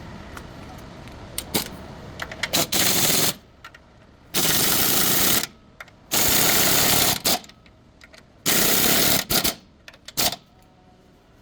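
Impact wrench running in four bursts of about a second each, with short blips between: nuts on the stabilizer link being run on or off.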